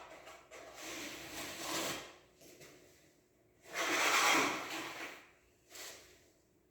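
Putty being spread on a wall: a series of rubbing, swishing strokes about a second long with short pauses between, the loudest about four seconds in.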